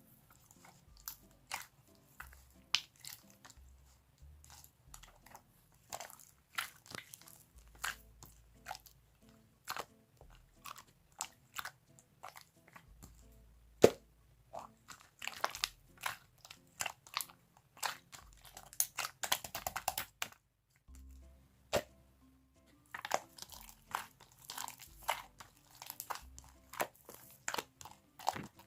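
Clear green jelly slime being squeezed and pressed by hand, making irregular sharp clicks and crackles. The clicks bunch into dense runs twice, with short pauses between.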